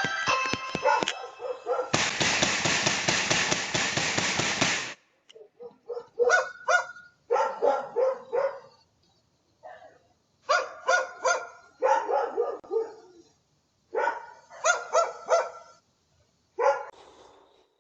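A dog barking in repeated bursts of three to five barks with short pauses between them, after about three seconds of loud rushing noise near the start.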